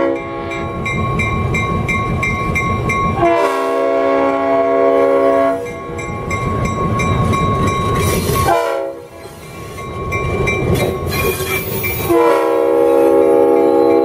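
Diesel locomotive's multi-chime air horn blowing a chord in several blasts at a grade crossing. A blast ends just as the sound begins. A second one of about two seconds comes a few seconds in, and a long one starts near the end. Between the blasts the locomotive engine and wheels rumble past, and a bell dings rapidly for a few seconds before the second blast.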